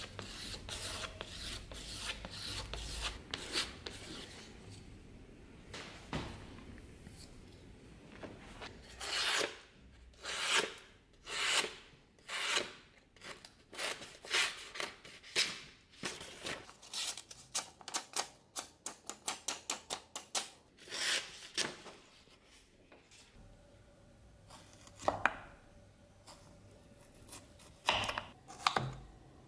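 A sharpened kitchen knife rubbing along a belt strop loaded with green polishing compound, then slicing through a sheet of paper in a long series of crisp strokes that quicken to about three or four a second. Near the end, the blade cuts through a small green fruit onto a wooden board with a couple of knocks.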